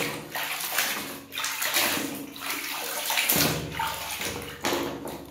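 Water sloshing and splashing in a tub of soapy water as a plastic toy rifle is swished and scrubbed by hand, in repeated surges.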